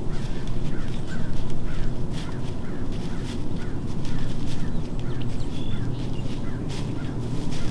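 Outdoor field ambience: a steady low wind rumble on the microphone, with scattered short bird calls, some crow-like caws, and small rustling clicks.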